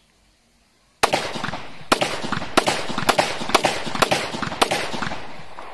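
A 30 bore (7.62×25 mm Tokarev) pistol fired seven times in single shots, starting about a second in, at roughly half-second to one-second intervals. Each shot echoes, and the echo fades away after the last.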